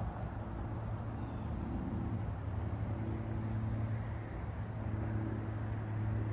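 Steady low rumble of road traffic: a constant low hum, with faint engine tones that come and go as vehicles pass.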